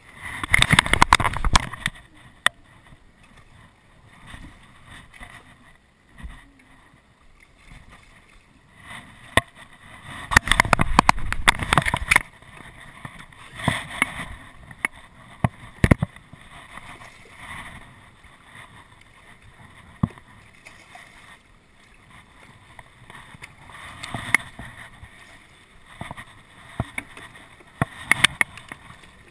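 A hooked snook splashing and thrashing at the water's surface beside a boat, in loud noisy bursts about a second in and again around ten seconds in, with smaller splashes and a few sharp knocks in between.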